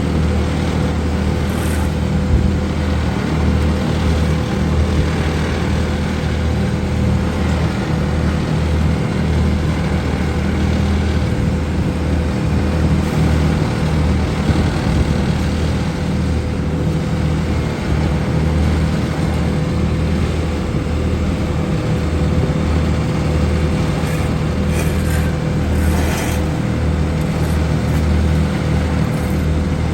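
Heavy asphalt-paving machinery running steadily: a deep, continuous engine drone with a steady whine above it.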